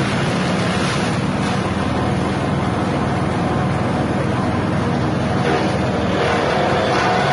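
Grass chopper machine driven by a 6.5 hp petrol engine running steadily as it chops grass.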